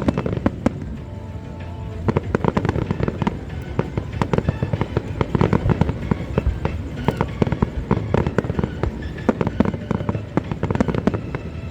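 Aerial fireworks bursting in quick succession: a dense barrage of bangs and crackles, thinning briefly about a second in before picking up again.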